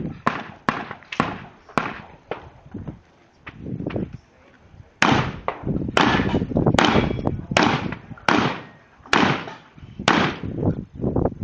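Rapid gunfire: a string of sharp shots, about two to three a second, each with a short fading echo. There is a pause of about two and a half seconds before the firing picks up again.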